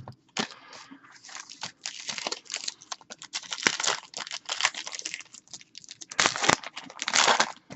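Plastic wrapping of 2016 Panini Diamond Kings card packs crinkling and tearing as it is handled, a fast uneven rustle that grows louder near the end.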